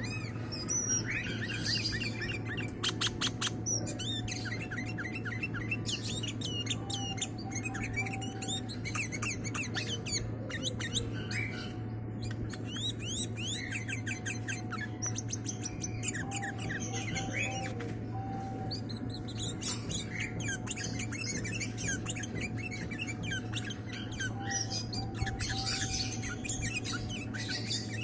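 Songbird chirping and twittering continuously in quick, varied calls and short rapid trills, over a steady low hum. This is the kind of bird-sound track played to coax a male bird into singing.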